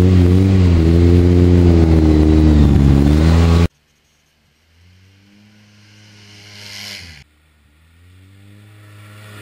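Polaris RZR side-by-side's engine running loudly, its revs rising and falling, until the sound cuts off abruptly about three and a half seconds in. After a second of silence the engine comes back faint, revving up twice.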